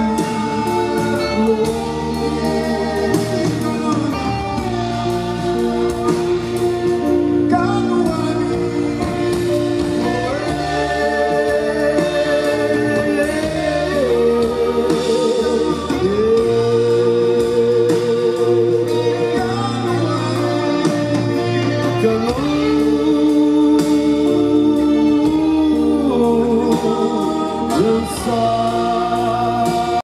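Live band playing a song: a man sings a melody of long held, wavering notes over a full band of electric guitar, keyboard, bass and drums.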